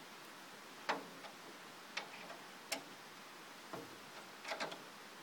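A few irregular sharp clicks and light knocks from handling the clear plastic roof panel on the wooden cab frame. The loudest comes about a second in, and a quick run of three comes near the end.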